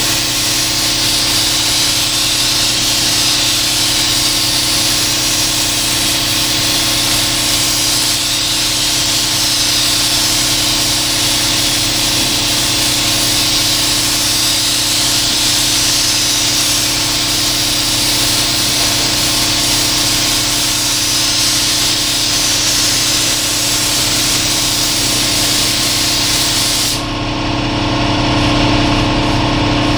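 Compressed-air paint spray gun hissing steadily as it sprays a coat of paint onto a car's hood, swelling and easing as it passes back and forth, over a steady machine hum. The spraying stops about three seconds before the end, leaving only the hum.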